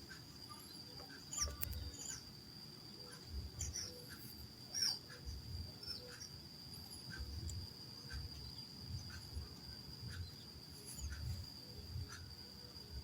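Insect chorus: a steady high trill runs throughout, with scattered short, high chirps and faint low thumps.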